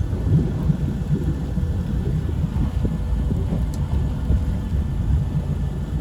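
Low, uneven rumble of a boat on open water, with wind buffeting the microphone.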